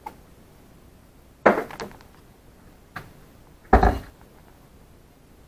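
A glass and a kitchen cupboard being handled: a sharp knock with a brief clatter about a second and a half in, a light click, then the cupboard door shut with a hard thump just past the middle.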